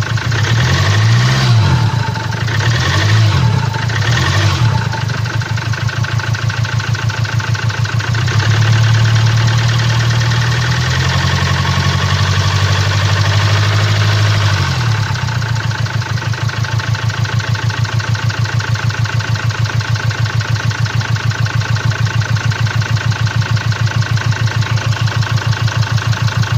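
2017 Land Rover Discovery TD4's 2.0-litre four-cylinder diesel engine (204DTD) idling with a fast, regular knocking pulse, blipped three times in the first few seconds, then held at raised revs for about six seconds before dropping back to idle. The knock comes from a defective fuel injector.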